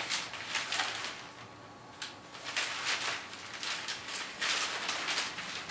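Newspaper pages rustling and crinkling as they are handled and turned, in repeated short bursts.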